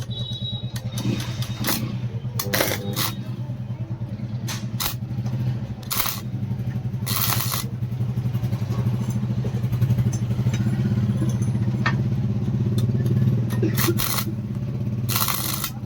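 A motor runs steadily with a low, rapidly pulsing hum. Irregular sharp knocks and a few short, hissing bursts sound over it.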